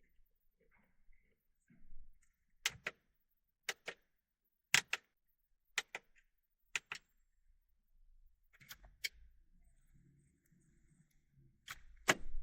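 Dashboard buttons and control levers of an early 2000s car being worked, giving a series of sharp mechanical clicks, mostly in close pairs like a press and release, about once a second, with a brief pause before the last few.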